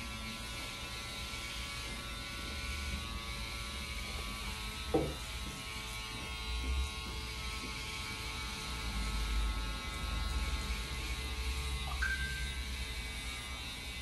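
Electric hair clippers running with a steady buzz as they cut a fade on the side of the head. Two brief sliding sounds break in, one falling about five seconds in and one rising near the end.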